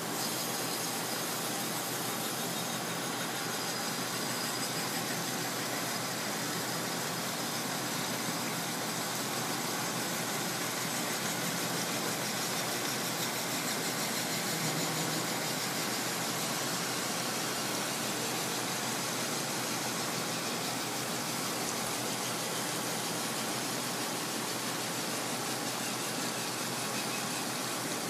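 Palmary PC-18S centerless grinder running and grinding workpieces fed between its grinding wheel and regulating wheel: a steady, even grinding noise.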